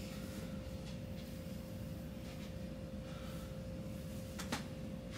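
Quiet room tone: a steady low hum with a thin constant tone over it, faint rustling, and a single sharp click about four and a half seconds in.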